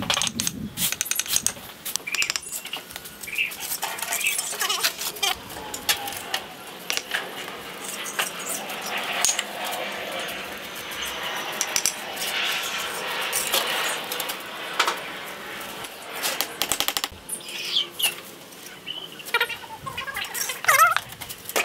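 Bricklaying: a steel trowel scraping and spreading mortar, with bricks set down and tapped into place by a hammer in a run of sharp clinks and knocks.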